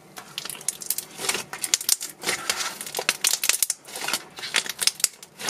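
Thick, glossy slime squeezed and kneaded by hand: a fast, irregular string of wet clicks, crackles and bubble pops.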